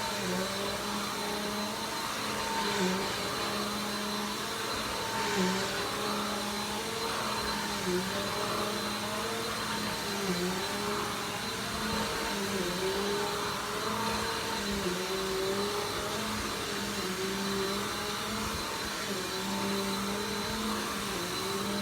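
Vacuum cleaner running steadily, its motor note dipping briefly in pitch every second or two.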